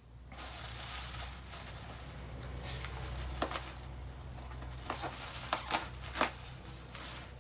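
Plastic bubble wrap rustling and crinkling as it is cut and pulled open by hand, with a handful of sharp crackles in the second half.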